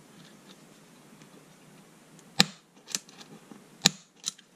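Faint scratching, then four sharp clicks, the first and third loudest: a small pointed metal tool marking the plastic housing of a cordless screwdriver through the hole in its aluminium ring.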